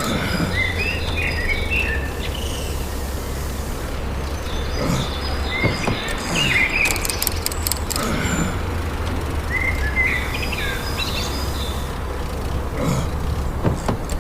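Ambient birds chirping in short repeated phrases over a steady low hum, with a brief run of rapid clicks about seven seconds in.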